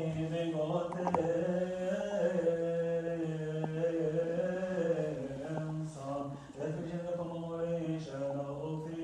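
Men's voices chanting a Coptic Orthodox liturgical hymn, unaccompanied, in long held notes that slowly rise and fall.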